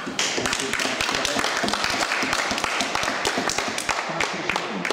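A roomful of people clapping, a dense patter of hand claps that thins out and dies away near the end.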